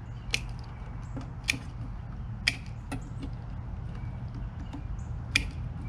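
Hand wire cutters snipping through wire, about five sharp snips at uneven intervals over a steady low hum.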